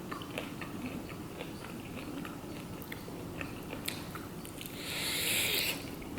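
Close-miked chewing of fried chicken wings, with many small mouth clicks and smacks. About five seconds in, a hiss lasting about a second stands out above the chewing.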